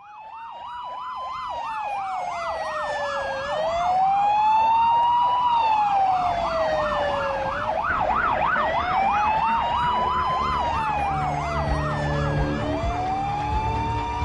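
Emergency vehicle sirens sounding together: a slow wail rising and falling every four to five seconds over a fast yelp of about three cycles a second, fading in at the start. A low rumble builds underneath from about halfway through.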